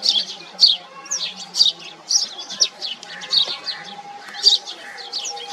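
House sparrow chirping: short, high chirps repeated about twice a second at an uneven pace.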